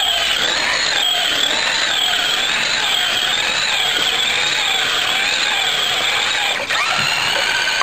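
RC car's motor whining under throttle, its pitch rising and falling again and again as it is driven, with a brief dip and swoop in pitch near the end.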